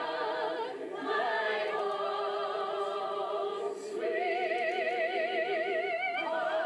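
A group of Broadway singers singing together in full voice, holding long notes with strong vibrato and rising to a higher held note near the end. It is heard through a television's speaker.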